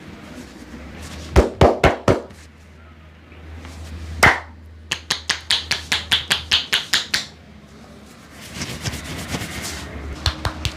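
Percussive hand massage: a barber's hands slapping and chopping on a customer's body. A few sharp strikes come about a second and a half in and one more just after four seconds, then a quick, even run of about seven strikes a second for two seconds, then softer rubbing with light taps near the end.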